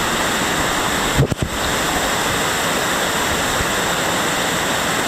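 Steady rushing of a waterfall close by, an even wash of falling water, with a brief bump about a second in.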